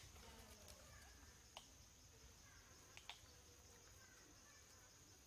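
Near silence: faint forest ambience with a steady, thin, high insect drone and a few brief faint clicks or chirps.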